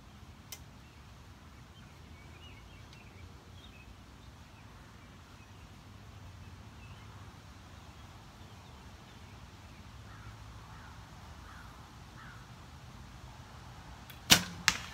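Recurve bow shot: a loud, sharp snap of the string on release near the end, followed about half a second later by a second, quieter smack as the arrow hits the foam target. Before it, a faint outdoor background with a few bird chirps.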